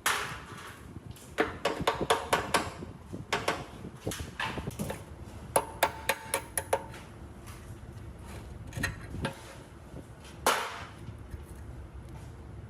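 Irregular sharp metal knocks and clinks on steel parts, some leaving a brief ring, the loudest right at the start and about ten and a half seconds in.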